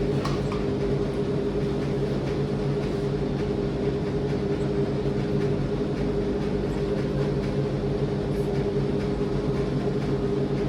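Steady low machine-like hum made of several fixed low tones, unchanging in level throughout, with a few faint clicks or rustles near the start.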